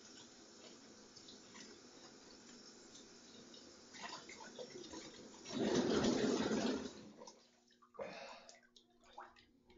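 Water in a bathtub: a faint steady hiss, then a louder slosh lasting about a second and a half as the bather shifts, after which it falls much quieter with a few small clicks and drips.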